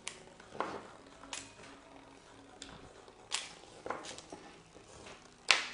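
Irregular sharp clicks and clinks of small hard objects knocking together, about eight of them at uneven intervals, the loudest near the end: a vibrating bristlebot bumping against the plastic blister pack and the mug.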